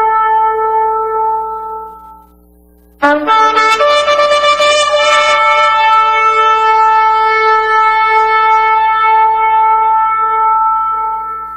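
Long shofar blasts: a held note fades out about two seconds in. After a short pause, a new blast starts with a rough, wavering attack, holds steady for about eight seconds and fades near the end.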